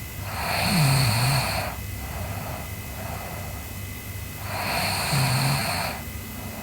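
A sleeping girl snoring: two snores about four seconds apart, each a rough, raspy inhale of about a second with a low buzz under it.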